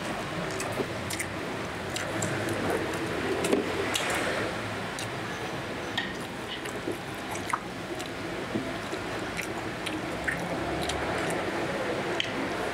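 Close-miked chewing of fried chicken: wet, squelching mouth sounds, with short sharp clicks of metal chopsticks and crunches scattered throughout.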